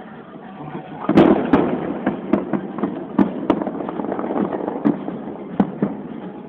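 Fireworks going off, starting about a second in: a rapid run of sharp bangs and pops with crackling between them, several louder bangs standing out.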